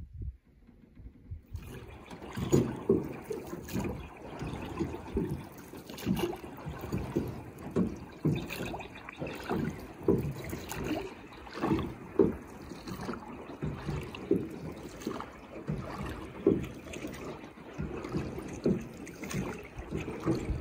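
Water sloshing and splashing in irregular strokes, about one or two a second, starting suddenly a second or so in.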